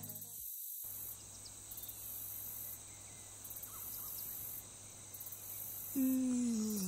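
A person yawning about six seconds in: one drawn-out voiced yawn sliding down in pitch, the loudest sound here. Before it there is only faint room tone with a thin, high cricket trill pulsing on and off.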